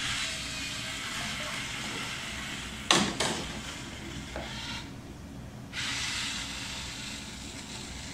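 Model river-cleaning boat's small DC motors running, its drive churning the pool water in a steady splashing hiss that stops just before five seconds in and starts again about a second later. A sharp clunk sounds about three seconds in.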